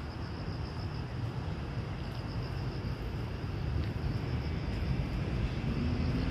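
Grass insects chirping in a high, quickly pulsing trill that comes and goes, over a steady low rumble like distant traffic.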